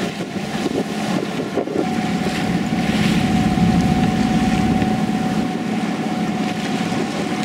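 A boat under way: a steady motor drone with a faint steady whine, mixed with wind on the microphone and rushing water.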